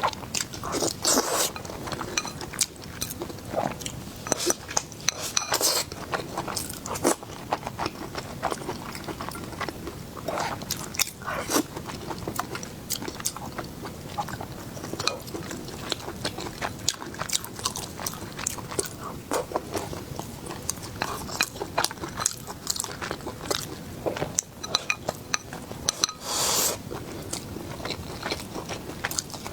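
A person chewing and biting food, with many irregular sharp crunches and moist mouth clicks. A longer, louder burst of noise comes near the end.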